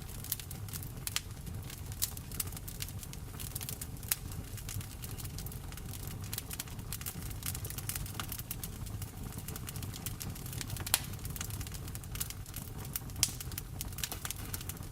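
Wood fire crackling in a fireplace, with frequent irregular sharp pops and snaps, over a steady hiss of rain and a low rumble.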